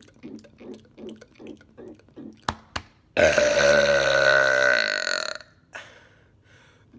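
A man's long, loud burp lasting about two seconds, starting about three seconds in, its pitch sagging slightly as it goes. Before it come soft rhythmic mouth sounds, about four a second, and two sharp clicks.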